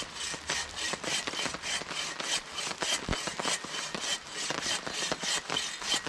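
Hand saw cutting through wood in steady rasping back-and-forth strokes, about three a second.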